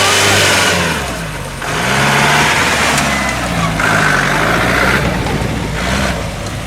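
Off-road jeep engine revving hard again and again, its pitch rising and falling with each throttle blip, with loud bursts of noise every second or two.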